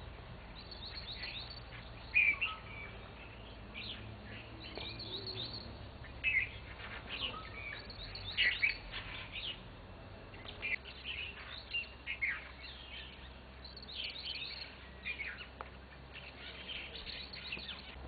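A mixed flock of small birds, including leafbirds, spot-winged starlings and purple sunbirds, chirping and calling in quick, overlapping bursts as they feed in a bush.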